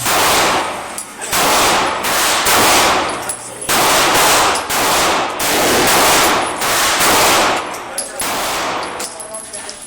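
AR-15 semi-automatic rifle fired in a steady string of about a dozen shots, roughly one every half second to second, each shot followed by a long echo.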